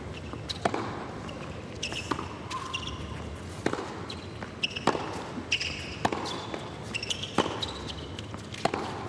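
Tennis rally on an indoor hard court: sharp pops of racket strikes and ball bounces, roughly one every second or so, with short high squeaks of players' shoes on the court between them.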